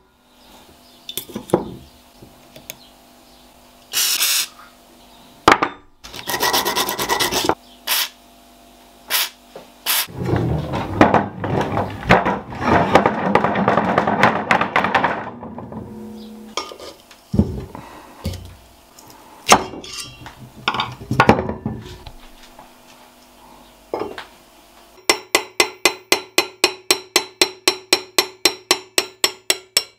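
Cast-iron Singer treadle parts handled on a wooden workbench, with sharp knocks and short sprays from an aerosol can of WD-40. Over several seconds the cast-iron flywheel spins and wobbles down on the wooden bench top, a loud rattling rumble that fades out. Near the end comes a fast, even run of clicks, about five a second.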